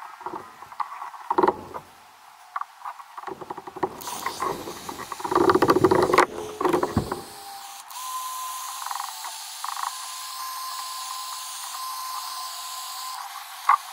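A screwdriver tip scrapes and taps on the kayak's polyethylene plastic. About four seconds in, an electric heat gun comes on and blows with a steady hiss and a faint steady whine. Tools scrape and knock against the plastic while the heat gun runs.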